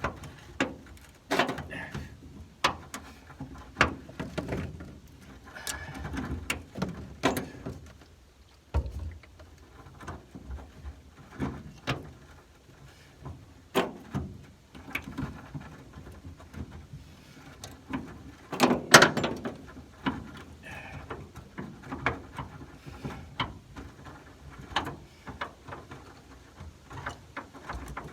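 Hand tools turning out a truck bed bolt with a T55 Torx bit on a 1/2-inch drive: irregular metal clicks and knocks, with a louder cluster of them about two-thirds of the way through.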